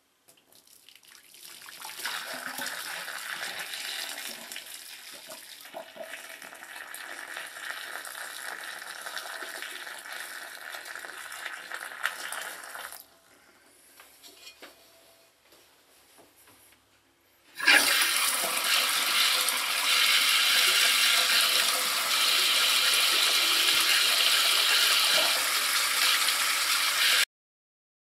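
Boiling water poured from a cooking pot into a slow-draining bathtub drain, splashing steadily, with a pause about 13 seconds in. A second, louder stretch of splashing water starts suddenly a few seconds later and stops abruptly near the end.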